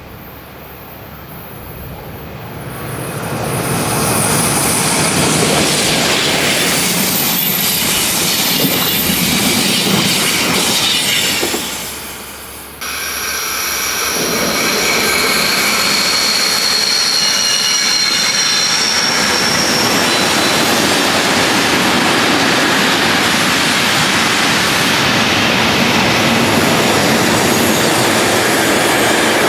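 An electric passenger train approaches and rolls past, growing louder over the first few seconds. After an abrupt cut about halfway in, a long container freight train rolls by with a steady rumble of wagons, and its wheels squeal shrilly for several seconds.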